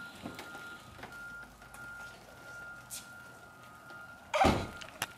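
A distant vehicle's reversing alarm beeping at one steady pitch, over faint outdoor background noise. There is a short loud burst of noise about four and a half seconds in.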